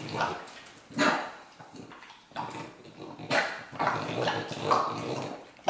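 French bulldog eating from a pup cup held in the hand: a series of about six short, noisy mouth and nose sounds.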